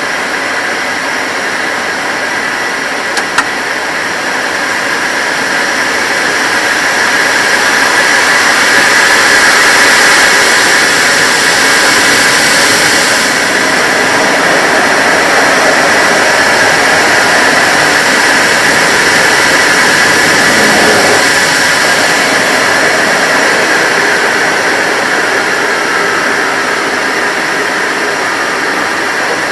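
Four Rolls-Royce Conway turbofans of a Handley Page Victor K2 running on the ground, heard inside the cockpit as a loud, steady rush with a faint whine. The engines grow louder for a few seconds, as though power is being brought up, then hold.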